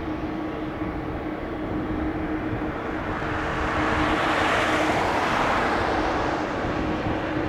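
Boeing 737 MAX 8's CFM LEAP-1B jet engines at takeoff power on the runway roll, a steady roar that swells to a peak about halfway through as the jet passes, then eases.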